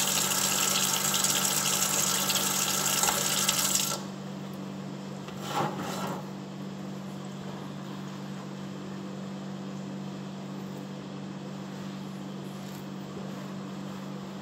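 Kitchen faucet running into a stainless steel sink, shut off abruptly about four seconds in. A brief handling sound follows a couple of seconds later, then a steady low hum.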